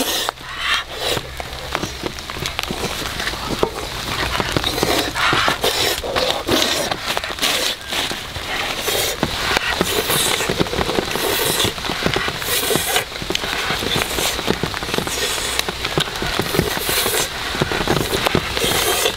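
Dense, continuous crackling and popping of open-fire cooking.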